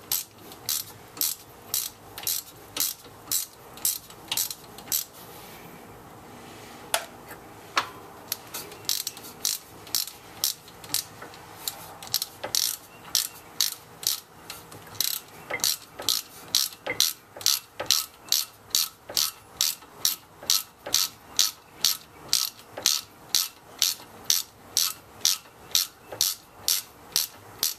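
3/8-inch ratchet clicking in quick, even back-swings, about two clicks a second, as a bolt on a rear brake is run in snug, with a short pause a few seconds in.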